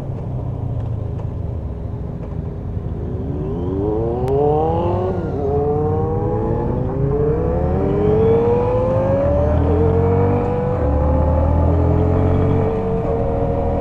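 Yamaha XSR125's single-cylinder engine pulling up through the gears. Its pitch climbs, drops at an upshift about five seconds in, climbs again, then settles to a steady cruise, over a continuous low rumble.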